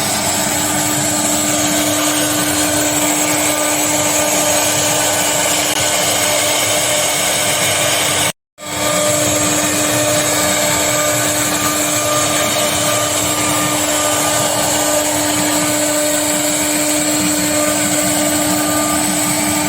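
CNC wood-carving router running steadily, its spindle giving a constant tone over a noisy hiss. The sound drops out completely for a moment about eight seconds in, then resumes unchanged.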